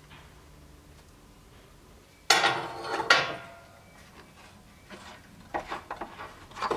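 Steel bar clamps being handled and set on a stack of wooden strips: about two seconds in, a sudden loud metallic clatter and rattle, then a run of separate clicks and clanks as the clamps are slid and tightened.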